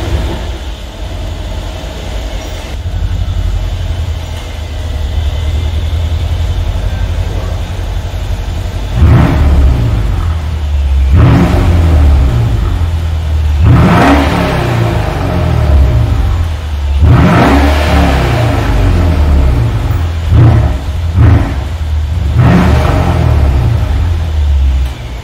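2015 Mercedes-Benz S550 Coupe's 4.7-litre twin-turbo V8 idling, heard at the exhaust tips. From about nine seconds in it is revved in about seven quick throttle blips, the last few close together, each rising and falling back to idle.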